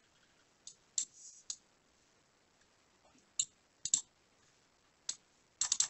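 A computer mouse clicking: about ten short clicks at irregular intervals, some in quick pairs.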